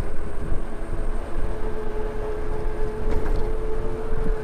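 Wind rumble and road noise while riding an Ola S1 Pro electric scooter, with a thin steady whine joining about a second in.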